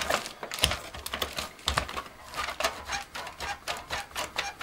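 Plastic body and coil-spring suspension of a New Bright Ram RC monster truck clicking and rattling as the truck is pressed down and rocked by hand: a run of irregular clicks, several a second.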